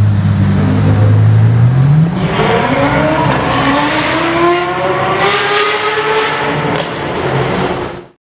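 Straight-piped Novitec Ferrari 812 Superfast's V12 idles with a steady low drone. About two seconds in it pulls away, its pitch climbing as it accelerates, then fades near the end.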